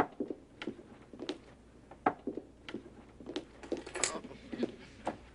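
Footsteps on a hard wooden floor, a string of irregular light steps and knocks, with one sharper clack about four seconds in.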